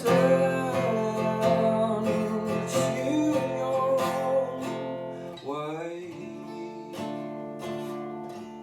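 A song: the singer holds the last word of a line, then an instrumental passage runs on and grows gradually quieter.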